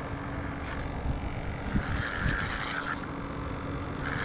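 Wind rumbling on the microphone over the noise of moving river water, with a few soft knocks and scrapes about two seconds in.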